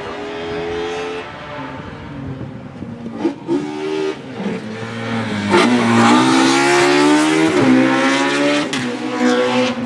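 Race car's engine at full throttle, revving up through the gears as it approaches and passes close: the engine note climbs and drops back at each gearshift, and it is loudest in the second half.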